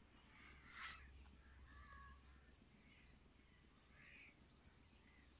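Near silence: faint outdoor ambience with a steady high insect whine, a brief rustle about a second in, and a few faint crow calls.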